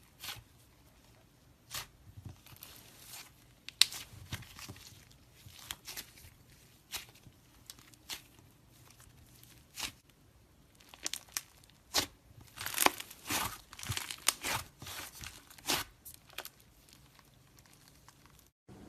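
Slime being squeezed and pulled by hand, giving irregular sticky crackles and pops that come thickest a little past the middle.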